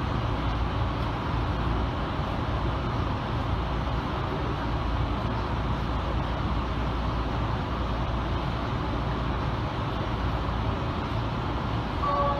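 Steady low hum and hiss inside a stopped electric commuter train. Near the end, a chime of a few sustained notes begins.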